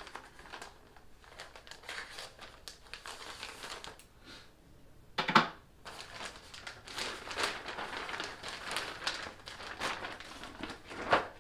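Packaging crinkling and rustling as a shipping package is opened and unwrapped by hand, with a single sharp knock about five seconds in.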